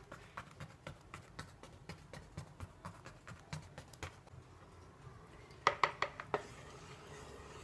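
A wooden toothpick pricked again and again into a baked sponge cake in a glass baking dish, giving a quick run of faint ticks. A short cluster of louder knocks comes about three-quarters of the way through.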